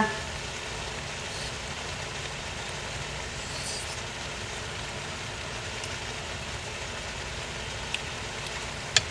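Steady, even hiss and hum of kitchen background noise, with a faint click near the end.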